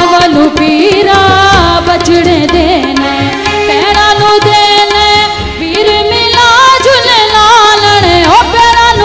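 Loud live Punjabi folk band music through a PA: an ornamented, gliding melody over tabla and a pulsing bass beat.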